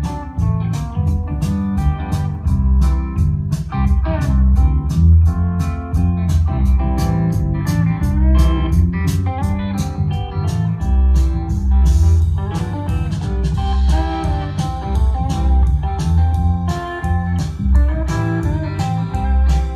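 Blues guitar music with a heavy bass line and a steady beat, played over home loudspeakers in a bedroom and picked up by a phone's microphone, the sound reflecting off the walls and floor.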